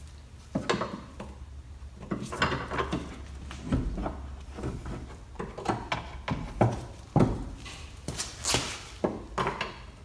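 Hand tools and a steel bolt knocking and clicking against the rear suspension as the rear toe-adjust bolt is worked out of the trailing arm, with irregular knocks, the sharpest about seven seconds in.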